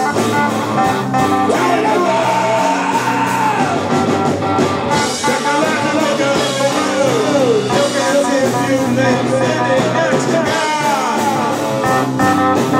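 Live rock band playing loudly: electric guitar and bass guitar, with a vocalist singing into the microphone.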